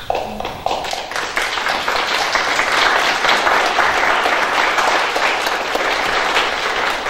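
Congregation applauding, many hands clapping: scattered claps at first that fill into steady applause within about a second and a half, easing off near the end.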